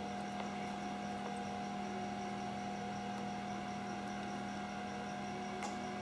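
Steady electrical hum, like mains hum, with a faint higher whine above it and a faint click near the end.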